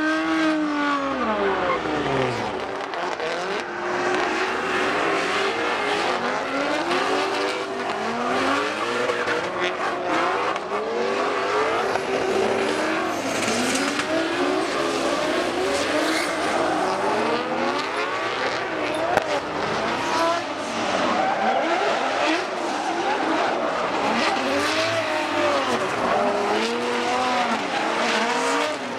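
Several drift cars sliding in tandem, engines revving up and down in quick overlapping swings, with tyre squeal from wheels spinning in the slide.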